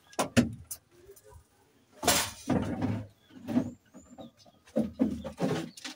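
Empty plastic jerrycans being handled and set down on a rack of wooden poles: a few sharp knocks in the first second, then louder irregular knocking and scraping about two seconds in and again near five seconds.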